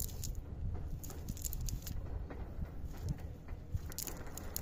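A fishing net being handled and shaken, its mesh and the weeds caught in it rustling, with many short scattered clicks over a low rumble.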